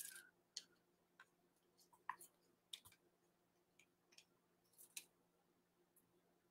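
Near silence broken by a scattering of faint, short clicks and taps from small plastic paint cups being handled, fading out after about five seconds.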